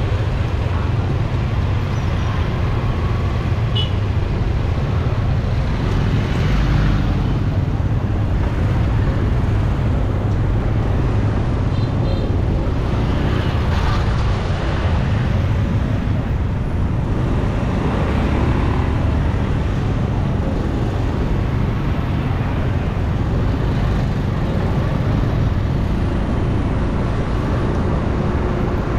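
Street traffic noise: a steady low rumble of engines, with several vehicles passing close by.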